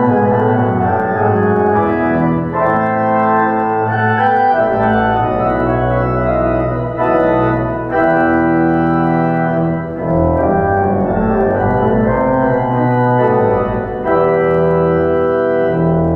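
Church pipe organ playing sustained chords over deep bass notes, the chords changing every second or two with brief breaks between phrases.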